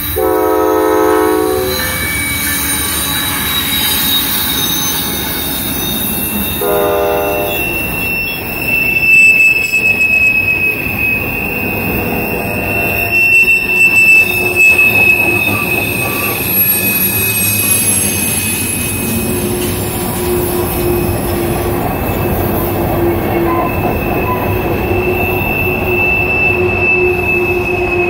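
CSX ET44AH locomotive horn sounding a chord twice: a blast of just under two seconds, then a shorter one about seven seconds in. Freight cars then roll by on the curve with their wheels squealing steadily and the running gear clattering, louder around nine and fourteen seconds in.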